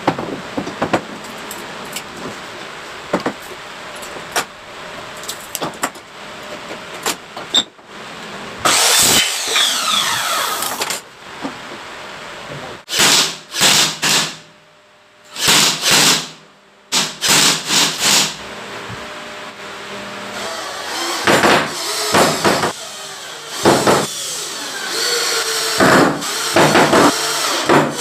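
Glass jars clink as they are set down on a wooden bench, then a cordless drill runs in repeated short bursts, its whine sliding in pitch as it drives screws through metal jar lids into a wooden strip.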